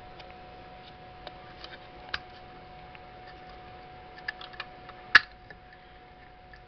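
Scattered clicks and taps of a small plastic project box being handled, its cover pulled off the LED circuit board inside, with the loudest click about five seconds in.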